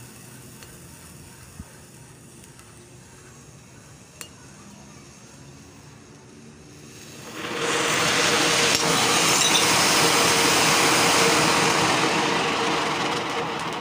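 Anar fountain firework burning with a low hiss under a glass pane, with two faint clicks. About seven seconds in the hiss turns into a loud, steady rush of sparks spraying upward, the pane having shattered, and it eases slightly near the end.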